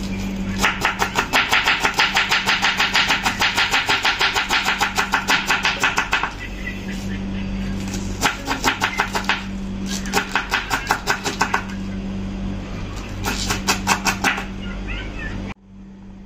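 A kitchen knife shredding cabbage on a wooden chopping board, about five quick strokes a second. One long run of strokes is followed by three shorter runs. A steady low hum runs underneath, and the sound cuts off sharply near the end.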